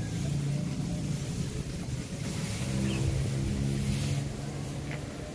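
An engine running steadily, its low hum shifting in pitch a little partway through, over a steady hiss.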